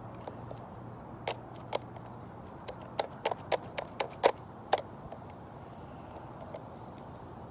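A run of about ten sharp plastic clicks, irregularly spaced over a few seconds, as BBs are pushed into an airsoft gun's magazine.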